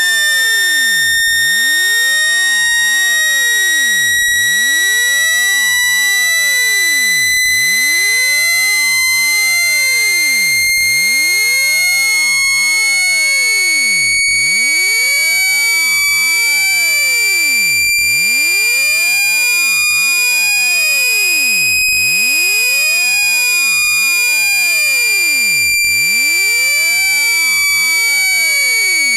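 Synthesized water-eject speaker cleaning tone: one continuous, loud, high-pitched buzzy tone with strong overtones. It glides slowly upward in pitch for most of the stretch, then eases slightly back down near the end.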